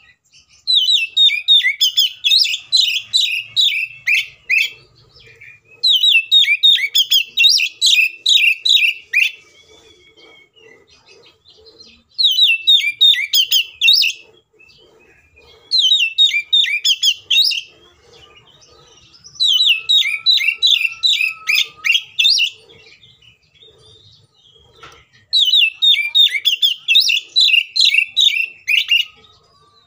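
Oriental magpie-robin (kacer) singing its loud, combative 'fighting' song. It sings in six bursts of a few seconds each. Each burst is a rapid run of sharp repeated notes, each note dropping in pitch.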